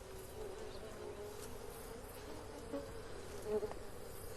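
African honeybees buzzing in a steady drone, with a single bee coming through louder a couple of times.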